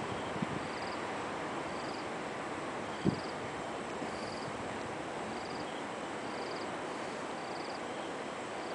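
An insect chirping: a short trill repeating about once a second over a steady hiss of outdoor noise, with one low thump about three seconds in.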